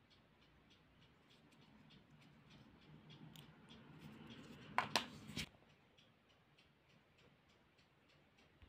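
Faint handling noise of a small phone battery and handset being turned in the fingers, rising to a few sharp plastic clicks about five seconds in. A faint, fast, even ticking runs underneath.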